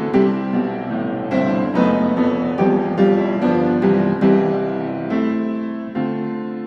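Piano music: a gentle run of struck notes and chords, each dying away before the next.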